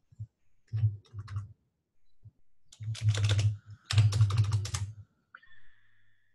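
Computer keyboard typing in several short runs of quick keystrokes, loudest about three and four seconds in. A faint steady high tone starts near the end.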